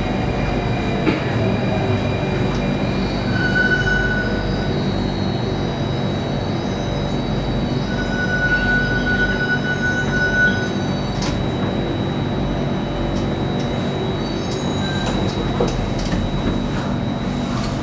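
Singapore MRT Circle Line train pulling slowly into a station, heard from inside the carriage: a steady motor hum with a constant high whine, and brief high squeals about four seconds in and again from about eight to ten seconds in.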